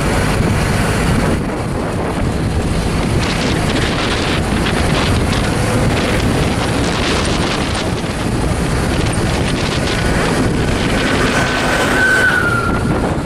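Wind buffeting the microphone over the steady rumble of the moving pickup truck's engine and road noise, heard from the open truck bed. Near the end a faint high tone comes in and dips slightly as it stops.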